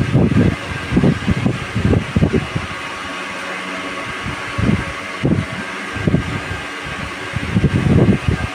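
A fan running steadily, with irregular low, muffled bursts over it a few times.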